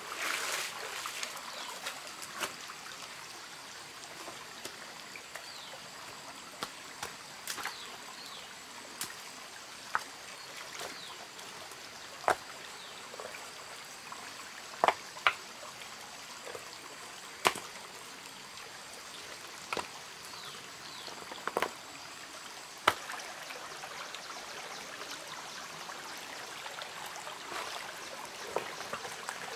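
Shallow stream trickling steadily over rocks. About a dozen sharp, irregular clacks of flat stones knocked together as they are laid in the stream bed. Splashing of wading footsteps near the start.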